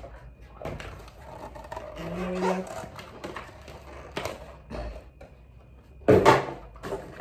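Scattered clicks, knocks and rustling of items and packaging being handled and rummaged through, with a brief low hum about two seconds in and a louder bump about six seconds in.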